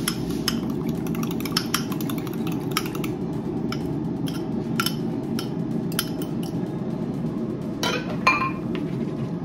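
Kitchen dishes and utensils clinking: a scattering of sharp, separate clinks, with a louder clatter near the end, over a steady low hum.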